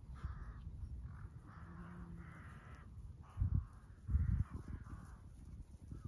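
Crows cawing repeatedly, a string of harsh calls about every half second. Two short, louder low rumbles of wind on the microphone come about three and a half and four seconds in.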